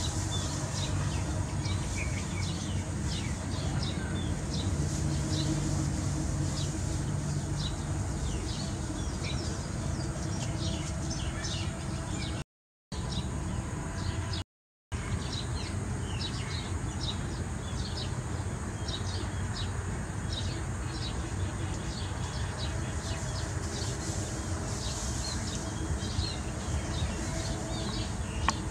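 Small birds chirping: many short, high chirps, repeated again and again, over a steady low outdoor background hum. The sound drops out briefly twice, about halfway through.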